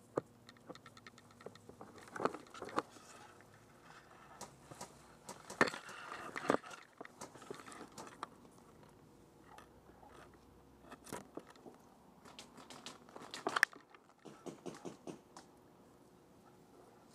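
Dry grass and reed stalks crackling and snapping under slow footsteps and against the body, an irregular run of crunches and rustles that grows louder in clusters midway and again about two-thirds of the way through.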